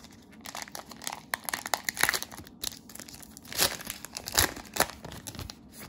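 Plastic cello-pack wrapper of trading cards crinkling as it is ripped open, a string of irregular sharp crackles.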